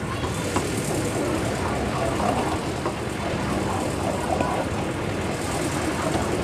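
Small Deutz OMZ 117 narrow-gauge diesel locomotive running steadily under way, its low engine hum mixed with the rumble and light clicks of skip wagons rolling on the rails.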